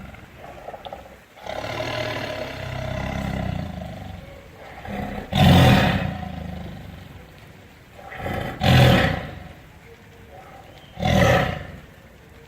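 Big cat vocalising with a rasping, snoring-like growl: a long low rumble, then three loud deep grunting calls about three seconds apart.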